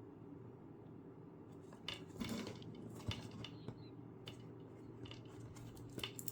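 Faint clicks and light clatter of small laptop parts being handled over a steady low hum, with a small cluster about two seconds in and single clicks around three and six seconds.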